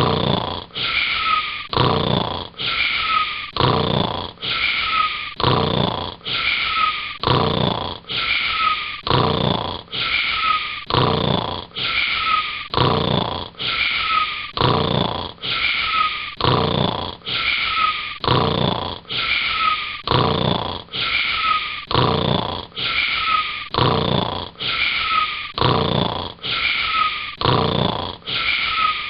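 Snoring repeated in an even, unchanging rhythm of about two snores a second, each one the same as the last, like a looped snore sound effect.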